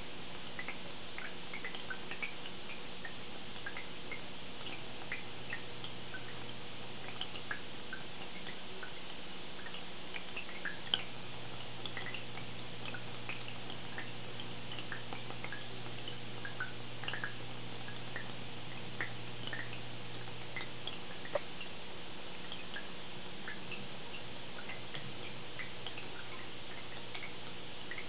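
Aquarium filter running: water trickling and bubbling, with many small irregular drips and pops over a steady low hum.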